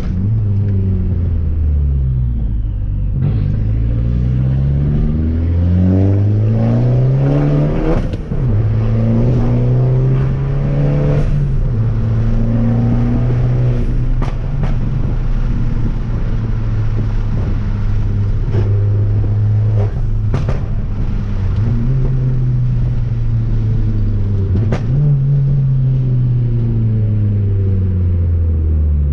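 Fiat Abarth 500's turbocharged four-cylinder engine pulling through the gears on a drive. The engine pitch climbs, then drops sharply at each gear change, about 3, 8 and 25 seconds in. Between the changes it holds a steady cruise, and a few sharp clicks cut through.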